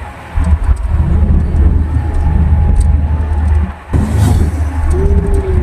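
Steady low rumble of a moving vehicle with wind buffeting the microphone, dipping briefly twice, with a faint whine bending in pitch near the end.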